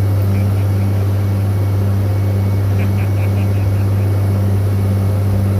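Tractor engine running steadily, powering a TMR feed mixer as a batch of cattle feed mixes. A deep, even drone with a fainter pulse about twice a second.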